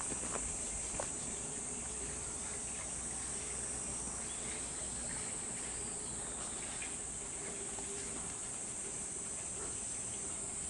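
Steady, high-pitched chorus of insects in the surrounding trees, with a few light footsteps in the first second.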